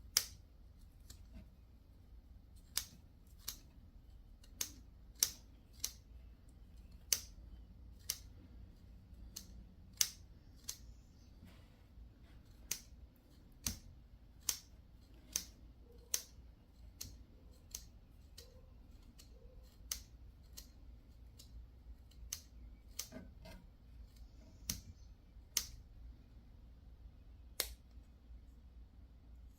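Small spring-loaded multitool scissors snipping open and shut again and again, each close a sharp metallic click, at an irregular pace of roughly one click a second.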